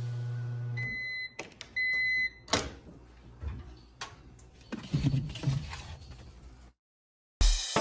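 A steady low hum cuts off, and two electronic beeps follow, each about half a second long and half a second apart. After them come a few sharp clicks and knocks.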